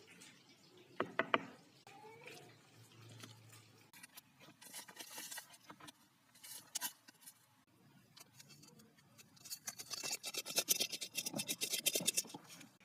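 Food-preparation sounds: utensils clicking and scraping against cookware, ending in a fast run of clicks near the end.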